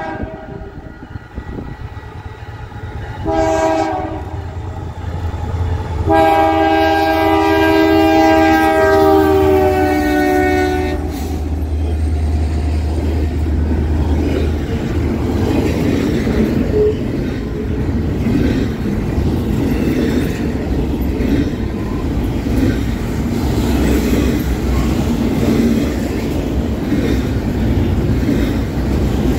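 Diesel locomotive air horn sounding a chord, first a short blast and then a long one whose pitch sags slightly as the engine passes, over a low engine rumble. Then the train rolls by with a steady rumble and the clickety-clack of wheels over the rails.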